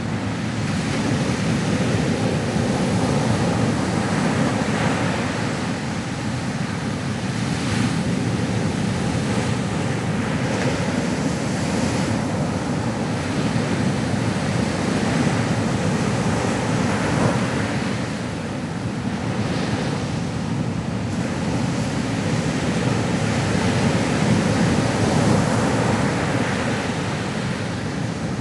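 Ocean waves breaking and washing on a shore, a continuous surf rising and falling gently every few seconds.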